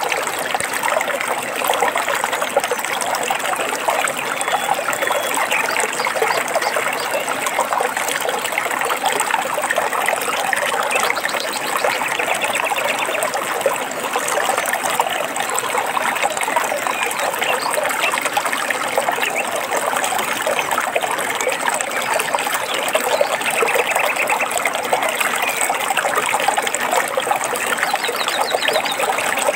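Stream water trickling and splashing steadily over rocks, with a few short bird trills now and then, around the middle and near the end.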